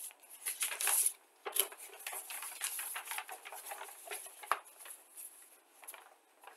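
Paper instruction sheet being handled and folded: rustling and crinkling in a quick run of crackles, loudest about a second in.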